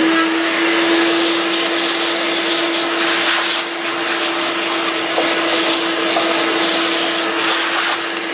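Vacuum cleaner running steadily, its hose nozzle sucking metal drill shavings off a sheet-metal chassis. A steady motor hum sits under a loud rushing hiss that swells and dips as the nozzle moves about.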